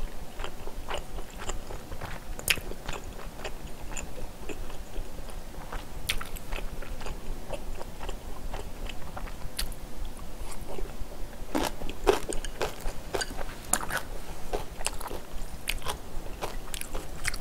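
Close-miked chewing of a mouthful of spicy stir-fried Korean pork (jeyuk bokkeum): a steady run of small crunches and clicky mouth sounds, thicker in patches near the end.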